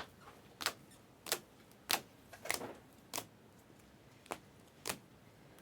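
A series of eight sharp clicks, about one every 0.6 seconds, with one longer pause about three seconds in.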